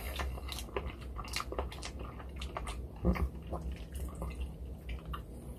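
A person chewing a mouthful of noodles, with small clicks and taps of a fork against a clear plastic tub. A louder mouth noise comes about three seconds in.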